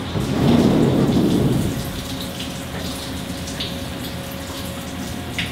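Sliding enclosure doors of a Haas CNC mill rolling open with a low rumble for about a second and a half, then a steady hiss with a faint steady hum from the machine.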